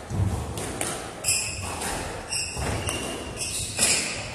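Squash rally: the ball knocks sharply off rackets and walls several times, amid players' feet thudding and shoes squeaking on the wooden court floor.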